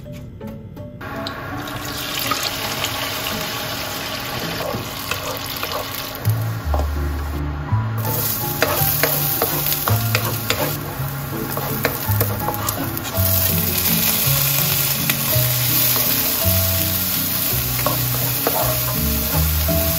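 Kitchen cooking sounds under background music: a steady hiss, such as food frying or water running, starts about a second and a half in and grows louder around the middle, with scattered light clicks and taps of utensils. The music has a slow, stepping bass line.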